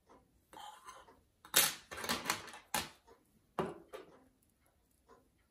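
Small metal hand tools clattering and knocking on a wooden workbench as they are handled and set down: a brief rustle, then a quick run of sharp clicks and knocks, and one last hard knock a little past the middle.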